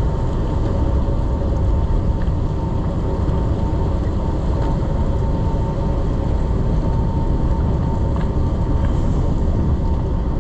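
Engine of a large party fishing boat running steadily underway: a continuous low rumble with a thin steady tone above it, mixed with water and air noise.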